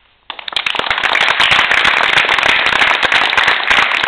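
Loud applause from many hands clapping, breaking out suddenly just after the start and going on as a dense clatter.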